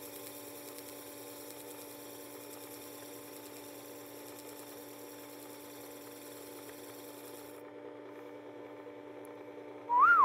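Power sharpener's motor running with a steady hum while the back of a plane iron is held flat against its spinning 400-grit abrasive disc. A higher grinding hiss rides on the hum and stops about three-quarters of the way in. A short rising-then-falling tone sounds near the end.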